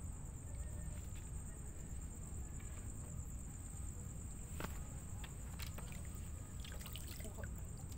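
Crickets trilling steadily at night over a low rumble, with a few scattered sharp clicks.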